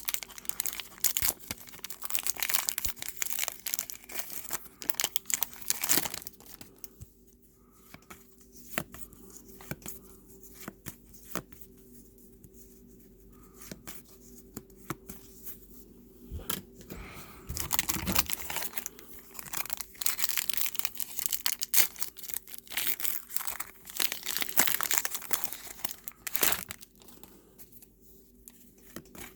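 Trading card pack wrappers being torn open and crinkled by hand, in two busy stretches with quieter handling of the cards in between.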